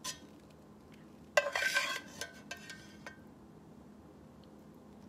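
Metal spatula scraping and clinking against a cooking pan as Brussels sprouts are scooped out: a brief scrape at the start, a louder scraping clatter with a short metallic ring about a second and a half in, and a few light clinks. It goes quiet after about three seconds.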